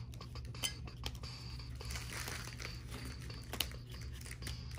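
Rigid plastic card toploaders clicking and sliding against each other as a stack of them is handled and squared up, with a couple of sharper taps.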